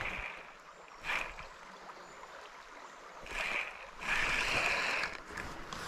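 River water running over a trout stream, with a few brief noisy swells; the loudest, about four seconds in, lasts about a second.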